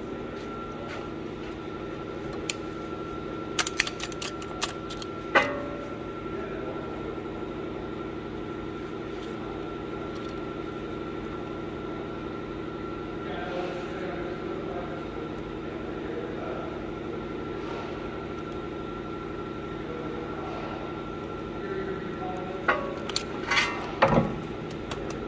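Steady hum of shop machinery with a held tone. Sharp metallic clicks and clanks come from a trigger-style caliper piston compressor tool being handled and fitted over the brake caliper: a cluster a few seconds in and another near the end.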